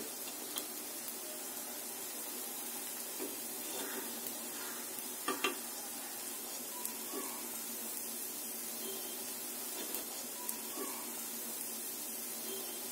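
Batter balls frying in oil in a ponganalu (paniyaram) pan, a steady soft sizzle, with light clicks of a metal fork and spoon against the pan as they are turned, the loudest a couple of knocks about five seconds in.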